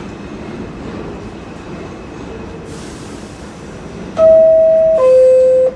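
R46 subway car's door-closing chime: a loud two-note ding-dong, the higher note then the lower, each held just under a second, about four seconds in. It signals that the doors are about to close. Before it there is the steady rumble of the car and a brief hiss.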